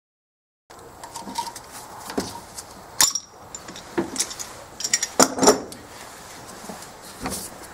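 Metal hand tools clinking and clattering during work on a car's dash: scattered sharp clinks with brief metallic ringing, the loudest about three seconds in, around four seconds, and twice near five seconds.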